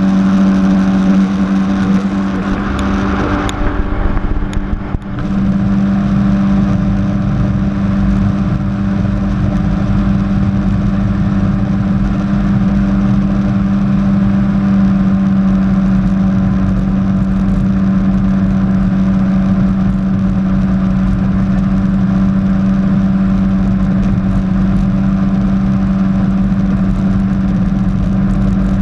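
Jet ski engine running steadily at speed. About four to five seconds in, the sound briefly dips and wavers, then it settles back to the same steady pitch.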